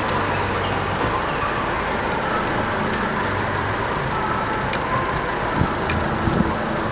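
Steady road noise of a slow-moving vehicle, engine hum and tyres on asphalt, with a few faint clicks near the end.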